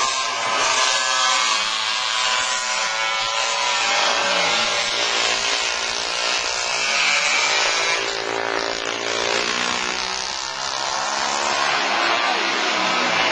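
Vintage motorcycle engines racing past on a circuit, their engine notes rising as they accelerate and falling away as they pass, with a rider going through the gears. Recorded through a low-fi camera microphone with a lot of hiss.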